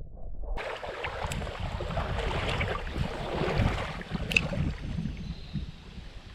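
Creek water rushing, with low wind rumble on the microphone, strongest in the middle and easing toward the end. Two sharp clicks stand out, one just after a second in and one past four seconds.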